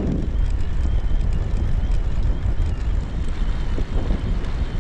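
Strong headwind buffeting the microphone of a moving recumbent trike, a steady low rumble.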